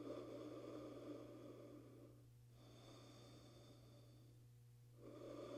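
Faint, slow breathing: three long breaths of about two seconds each, with short pauses between them, over a steady low hum.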